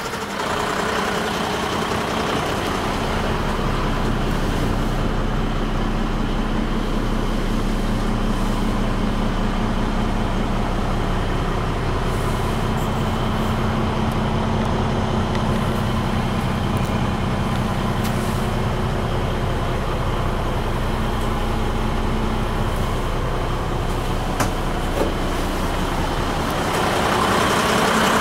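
Renault Midliner M150 truck's diesel engine idling steadily.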